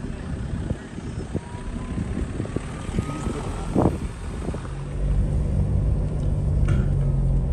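A vehicle engine running and moving along a bush track, its low hum growing louder and steadier about five seconds in.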